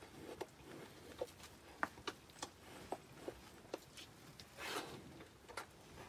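Calf suckling at a cow's udder: faint wet smacking clicks, irregular, about two a second, with a short louder rush of noise about five seconds in.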